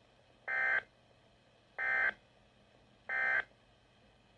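Three short bursts of SAME digital alert data from a Weatheradio Canada transmitter, each lasting a fraction of a second with about a second of silence between them. They are the end-of-message code that closes an emergency weather bulletin.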